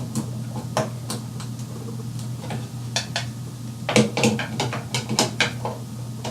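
Clicks and rattles of a light fixture's cover panel being handled and fitted back into place, busiest in the second half, over a steady low electrical hum.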